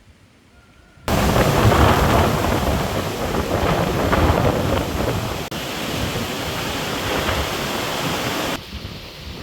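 Storm noise: heavy rain and wind with low thunder rumble, starting abruptly about a second in, with a brief break in the middle, and dropping sharply to a quieter level near the end.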